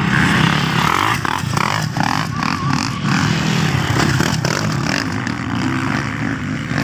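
Motocross dirt bike engines running and revving during a race, their pitch rising and falling.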